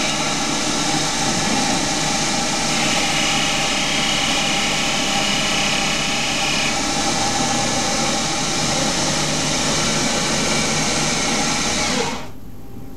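Hercus CNC lathe running while a carbide insert faces and turns a bar of 2011 aluminium held in an air chuck: a steady machine sound with several steady tones, and a higher tone added from about three to seven seconds in during the cut. About a second before the end the spindle drive shuts off and the sound drops suddenly.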